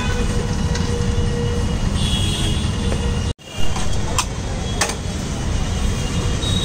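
Steady low rumble of street traffic. Halfway through, the sound drops out for an instant, then comes a loud knock and two sharp metal clacks a little over half a second apart as a hinged metal sandwich toaster is swung open.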